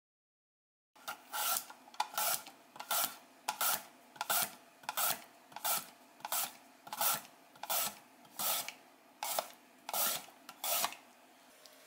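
Raw sweet potato pushed over the blade of a mandoline slicer, each stroke shaving off a thin slice with a rasp. The strokes come at a little over one a second, some in quick pairs, starting about a second in and stopping near the end.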